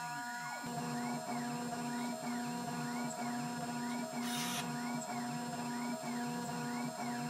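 Milling machine cutting a circular counterbore pocket in aluminium with an end mill: a steady motor hum under a whine that rises and falls about once a second. A short hiss about four seconds in.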